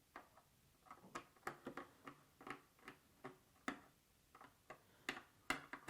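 Faint, irregular small clicks and taps of wire ends being fitted into an extractor fan's plastic terminal block.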